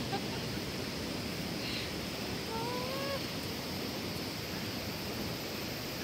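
Steady rushing of the Ōdaru waterfall as a constant noise. A short pitched call sounds once about halfway through.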